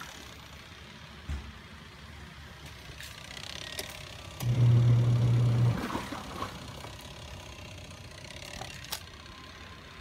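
Midea twin-tub washing machine's wash motor giving one low, steady hum of a little over a second, about four and a half seconds in, as it drives the agitator in a wash stroke. Otherwise a low background with a few faint clicks.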